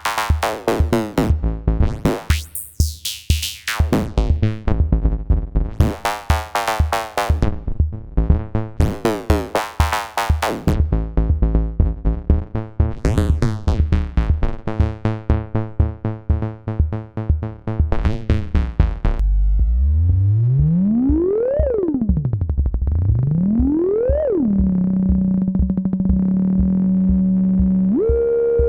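Modular synthesizer patch voiced by an ST Modular Boba Fat Eurorack module: a fast rhythmic sequence of pulsed synth notes with a sweeping, bright timbre. About two-thirds of the way in it changes to one sustained tone that glides up and down in pitch twice, then holds a steady low note.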